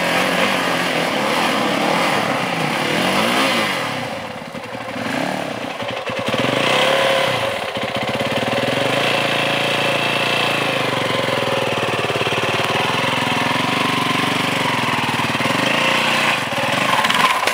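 Dirt bike engines running at low speed, the revs rising and falling with short blips of throttle, as the bikes are eased through a slow technical section.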